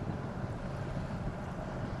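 Steady engine noise from a watercraft running on the water, a jet ski or the towing boat, with wind on the microphone and water noise.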